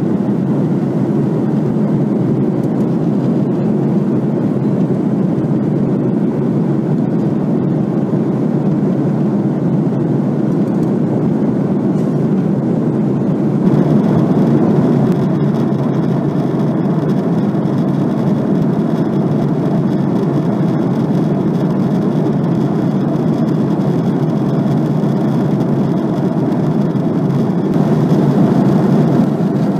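Steady cabin drone of an Airbus A330-200 airliner in cruise, engine and airflow noise heard from inside the cabin at a window seat. The tone shifts slightly about halfway through.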